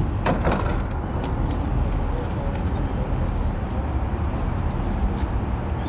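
Loud, steady machinery rumble with scattered clicks and knocks over it.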